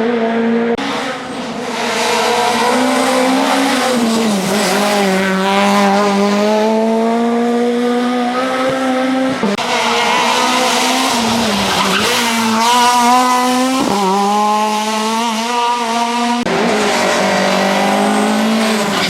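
Ford Fiesta RS WRC rally car's turbocharged 1.6-litre four-cylinder engine running hard at high revs, its pitch climbing and dropping with throttle and gear changes. The sound jumps abruptly several times, as if cut between separate passes.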